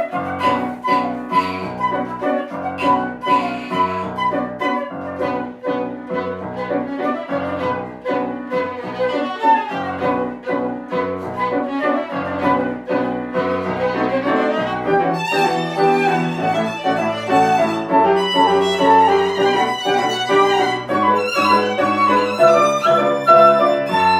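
Tango trio of piano, violin and flute playing live, the violin to the fore over piano accompaniment. The first half is choppy and rhythmic; from about fifteen seconds in, the music turns to longer held notes.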